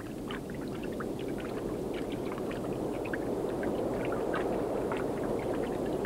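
Muffled underwater water sound: a steady low rushing with many small bubbling clicks and pops scattered through it.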